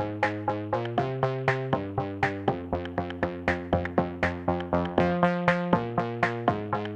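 Electronic background music: held synthesizer chords that change about every second over a steady beat of about four hits a second.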